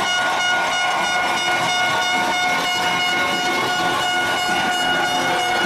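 A horn blowing one long, steady, unbroken note, which cuts off near the end.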